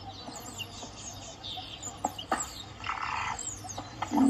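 Birds chirping: many short, high, down-sliding chirps throughout, with a short scratchy burst about three seconds in.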